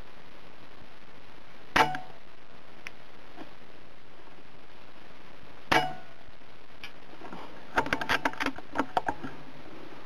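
Two shots from a Theoben Rapid .25 PCP air rifle, each a sharp crack with a brief ring, about four seconds apart. A quick run of metallic clicks and clacks follows near the end.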